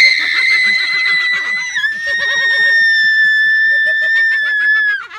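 A person screaming in one long, very high-pitched shriek, held about five seconds with the pitch dropping slightly about two seconds in, with laughter underneath.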